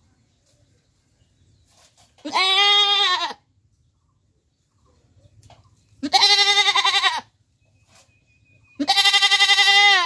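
A goat bleating three times, each bleat about a second long with a quavering pitch.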